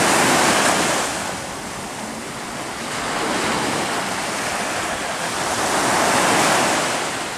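Small ocean waves breaking and washing through the shallows. The surf swells loudest right at the start and again near the end.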